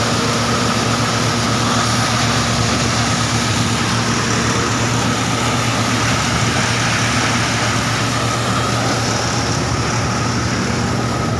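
Tractor-driven maize thresher running under load while shelling maize, its tractor engine, threshing drum and blower together making a loud, steady drone with a higher hum running through it.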